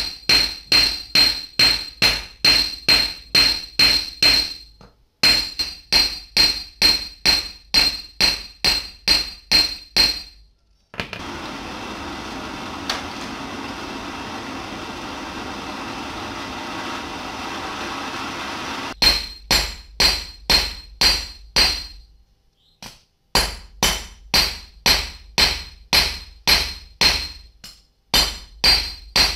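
Hand hammer striking a steel rebar rod on a metal block to flatten it, about three blows a second in runs with short pauses, each blow ringing. In the middle, for about eight seconds, the hammering stops and the steady hiss of a portable butane gas torch heating the rod takes over.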